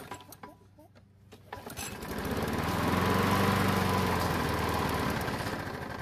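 A Craftsman walk-behind mower's small engine catches on a pull-start about two seconds in and runs briefly, then fades away as it dies. It dies almost at once, probably running only on gas from the choke circuit, a sign of a carburetor problem after long storage.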